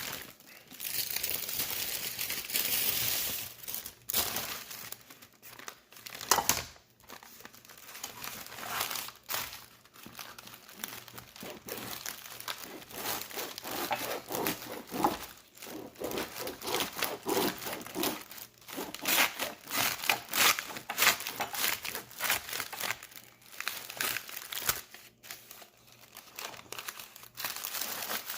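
Plastic bag crinkling and rustling as a loaf of French bread is handled in its bag, a dense run of crackles that is heaviest in the first few seconds, with one sharper crack about six seconds in.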